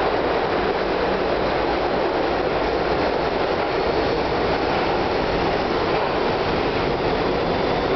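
R62A subway train running through the station at speed without stopping: a steady, unbroken rumble and rail noise.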